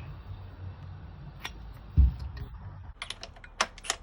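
Light clicks and knocks of tools and metal parts being handled while the transmission is taken off, with a dull thump about two seconds in and a quick run of sharp clicks near the end, over a steady low hum.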